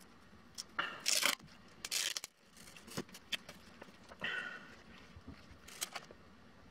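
A plastic-film tattoo bandage being peeled off skin and handled: several short crinkling, tearing rustles, with a few light clicks between them.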